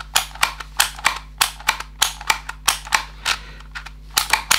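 Dymo Omega embossing label maker being worked quickly, its plastic mechanism giving sharp clicks about four times a second at uneven intervals as characters are embossed onto the tape. The unit being tested is a working one.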